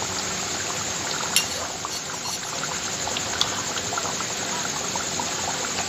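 Chicken curry in a large metal kadai being stirred and ladled, liquid pouring and sloshing under a steady hiss, with two sharp clicks of the metal ladle against the pan about a second and a half and three and a half seconds in.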